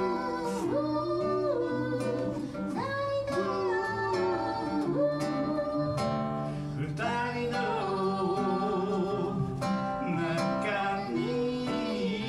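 A man singing a song to his own acoustic guitar accompaniment, with held, gliding sung notes over steady strumming.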